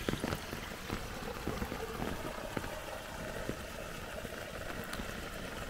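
Rainwater running steadily into a field canal through a culvert, an even wash of flowing water with a few faint ticks.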